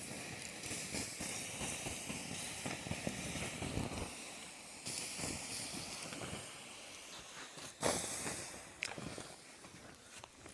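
Hot campfire coals hissing and sizzling as liquid is poured onto them, sending up steam, with a few sharp pops near the end.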